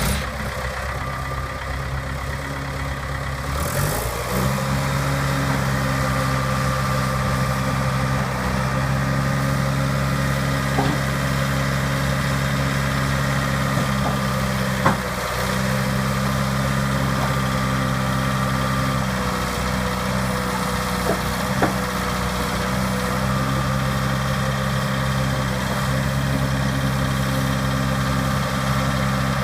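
Dresser TD9H crawler dozer's diesel engine running steadily. About four seconds in the engine speed rises and then holds at the higher speed, with a few faint clicks over it.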